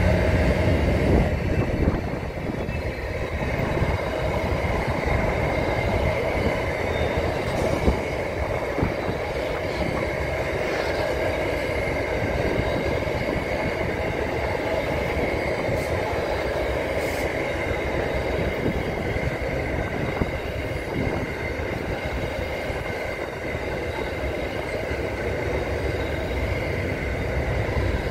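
Container wagons of a Pacific National intermodal freight train rolling past: a steady rumble of wheels on rail, with a constant high whine running through it and a few sharp clicks.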